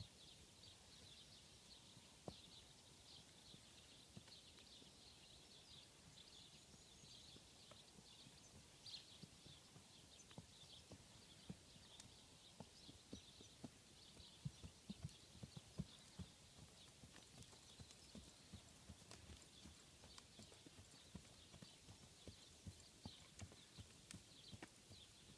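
Faint, dull hoofbeats of a barefoot horse, its shoes just taken off, on hard, uneven grass ground. The thuds come in irregular runs and grow more frequent in the second half.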